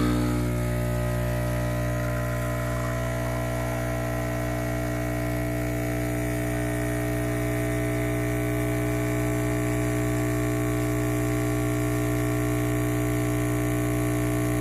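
Breville BES840XL Infuser espresso machine's vibratory pump humming steadily while it pulls an espresso shot.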